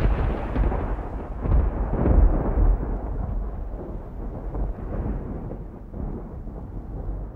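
A deep rumble with some crackle that fades away gradually over several seconds.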